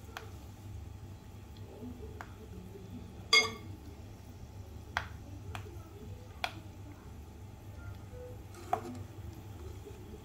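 A steel wire-mesh frying basket clinks against a kadhai while peanuts deep-fry in oil. One loud ringing clink comes about three seconds in, and several lighter clicks follow, over a low steady hum.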